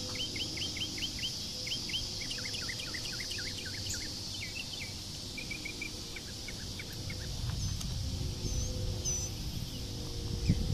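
Outdoor ambience of birds chirping in quick series of short falling notes, over a steady high insect buzz. A few higher whistled calls come in later, and a low rumbling noise builds in the second half.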